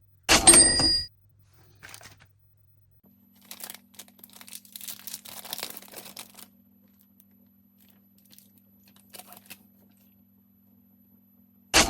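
Packaging crinkling and tearing in short irregular bursts over a low steady hum. Twice, about a second in and again at the very end, comes an identical loud short burst with a bright high ring.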